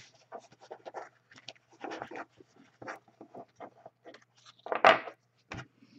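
Trading cards and card packs being handled on a tabletop: irregular light rustling and clicking, with a louder rustle about five seconds in and a soft thump just after.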